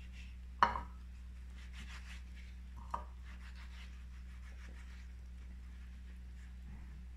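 A sharp knock, then a smaller one about two seconds later, as spice-coated vegetable pieces are set down on a metal baking tray. Light rubbing of hands over the food comes in between, over a steady low hum.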